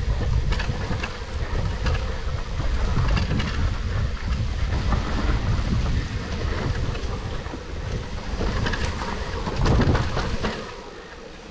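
Electric mountain bike (a Trek Rail) descending a dry dirt trail: steady wind buffeting on the camera microphone over tyre rumble, with frequent rattles and knocks from the bike over bumps, the loudest about ten seconds in.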